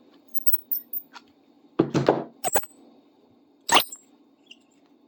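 Metal gear puller being handled and its threads worked loose: a few light clicks, a louder rattle about two seconds in, then a sharp ringing metal clink near the four-second mark.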